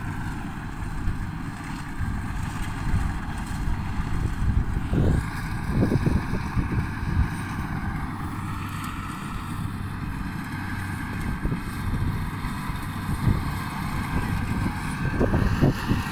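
Wind buffeting the microphone in gusts over the steady drone of a rice combine harvester's engine working in the field.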